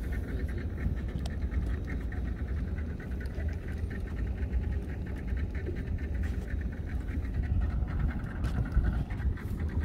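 Small fishing boat's outboard motor running steadily at trolling speed, with a constant low rumble and a fast even pulsing.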